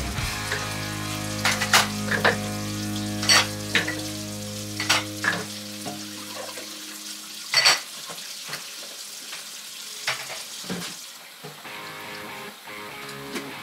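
Sharp clinks and knocks of kitchenware being handled, several a second or more apart, over soft background music whose held notes fade out about halfway through.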